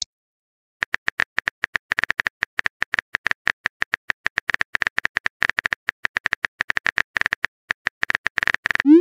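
Phone keyboard typing sound effect: rapid, irregular key-tap clicks as a message is typed, starting about a second in. Near the end comes a short rising whoosh as the message is sent.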